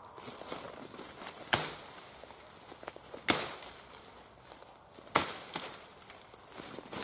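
Fiskars XA23 brush hook chopping into rose bramble canes: three sharp strikes a little under two seconds apart, with rustling and crackling of the brush between them.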